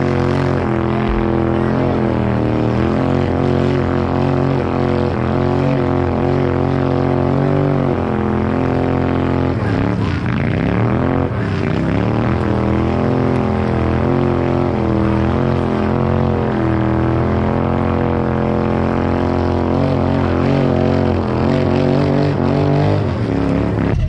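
Turbocharged LS V8 engine idling loudly and steadily, its pitch dipping and recovering briefly about ten seconds in.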